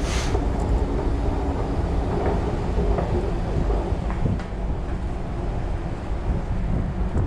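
Steady low rumble of a railway station, with an escalator running and the open platform's background noise, and a few faint ticks.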